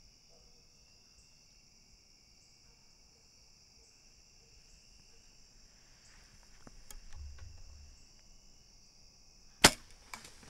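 Crickets and insects chirping steadily, with a few faint knocks partway through. Near the end comes a single loud, sharp crack of a bow being shot at a deer, followed by a couple of fainter clicks.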